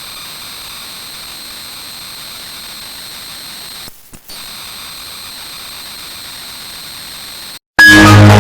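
Steady high-pitched ringing tones over a hiss, looped with a brief break about four seconds in. Near the end it cuts off and loud electronic music bursts in.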